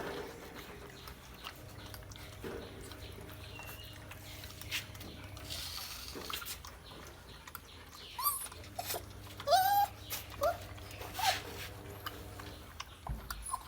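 A litter of month-old American Akita puppies whining, with several short high rising-and-falling whimpers in the second half, over a steady low hum.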